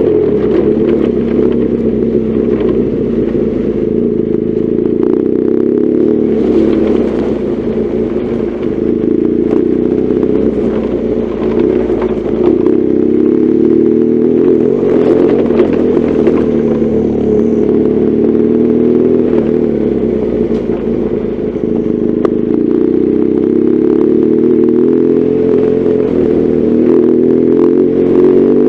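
BMW R1200GS Adventure's boxer-twin engine running steadily under way, its pitch holding fairly even, with scattered light clicks and knocks over it.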